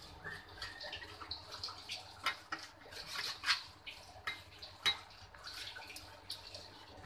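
Utensils scraping and knocking against a nonstick frying pan as a thick, crumbly mixture of ground melon seeds and sugar syrup is stirred, with several sharper knocks, the clearest about two, three and a half and five seconds in.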